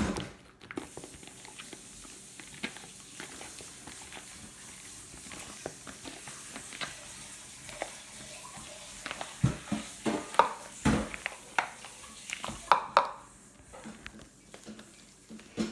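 Homemade slime being squeezed and worked by hand: soft sticky crackles and clicks, with louder squelches in the second half.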